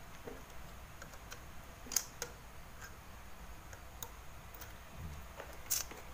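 A few sparse, sharp clicks and taps of hand tools working on the TV's circuit board while the B+ supply jumper is cut, over faint background noise.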